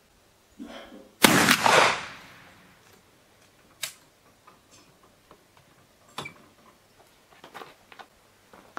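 Pedersoli Whitworth .451 percussion muzzle-loading rifle firing a black-powder charge. There is a fainter snap, then the loud shot about a second in with a tail dying away over about a second. A few sharp clicks from handling the rifle follow.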